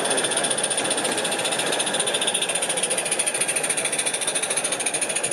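Large-scale model steam locomotive running past with a coach, its exhaust chuffing in a fast, even beat over a steady hiss.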